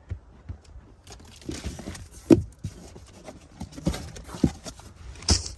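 Wind buffeting the microphone, with irregular knocks and rubbing handling noise. The loudest is a sharp knock about two seconds in.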